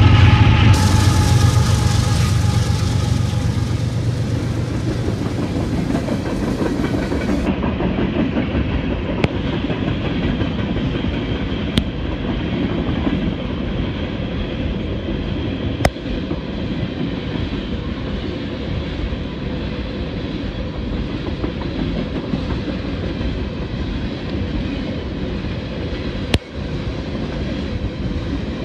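A CSX freight train passing at close range. The diesel locomotives' engine drone fades over the first few seconds, then a string of boxcars rolls by with a steady wheel-on-rail rumble and clickety-clack, broken by a few sharp clicks.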